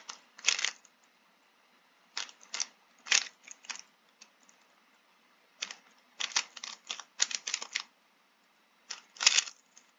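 A 3x3 puzzle cube being turned fast in the hands during a solve: bursts of quick plastic clicks and clacks as the layers are turned, with short pauses between bursts.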